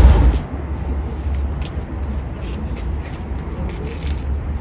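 A louder noise cuts off about half a second in, leaving a steady low outdoor rumble with a few faint clicks.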